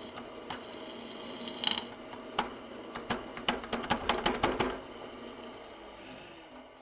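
Metal tool-handling clicks and clinks in a knifemaking workshop, about a dozen sharp ones bunched in a couple of seconds, over a low machine hum that dies away near the end.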